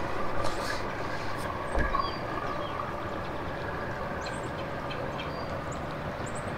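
A steady mechanical hum with a few faint, short, high chirps in the second half.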